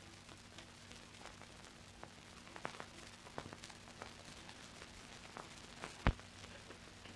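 Worn soundtrack of an old black-and-white film: a steady low hum and hiss with scattered crackles and clicks, and one sharper click about six seconds in.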